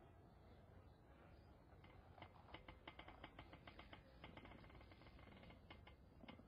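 Faint computer keyboard keys clicking in quick, irregular runs, starting about two seconds in.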